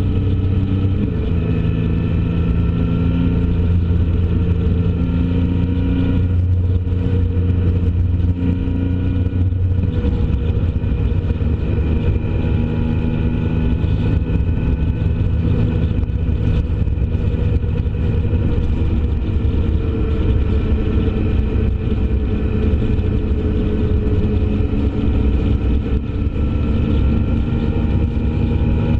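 Vehicle engine running steadily at highway speed over a constant rush of road and wind noise; its note shifts down about a second in and changes again around ten seconds in.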